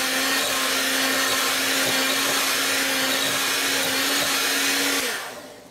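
Electric hand mixer running steadily at one speed, its beaters churning thick tamal dough with raisins in a glass bowl. The motor is switched off near the end and spins down.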